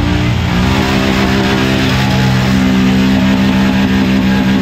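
Quad bike (ATV) engine revving up and held at steady high revs as it churns through deep mud.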